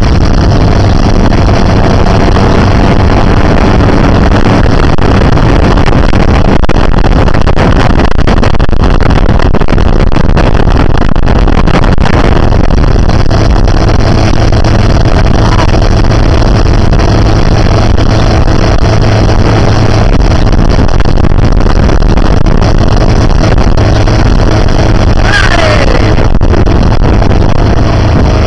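Motorboat engine running steadily at towing speed, heard from aboard the boat under a loud, constant rush of wind and water. A brief falling tone near the end.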